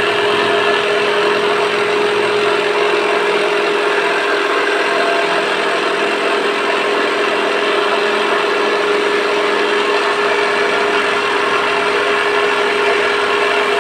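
Small electric motor, likely the homemade scroll saw's, running at a constant speed with a steady whine.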